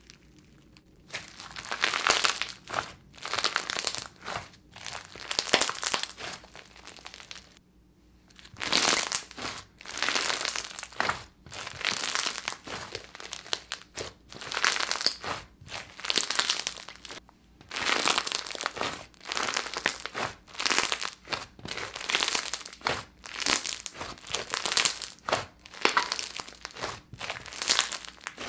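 Thick cream-coloured slime full of small coloured beads being stretched, pressed and squeezed by hand. It gives a long run of crunchy, crinkling crackles, with short pauses about eight and seventeen seconds in.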